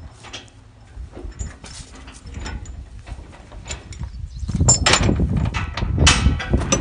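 Steel tie-down chains clinking and clanking on a trailer's wooden deck while a log skidder is chained down, a few scattered clinks at first, then a louder, busier run of clanking about four and a half seconds in.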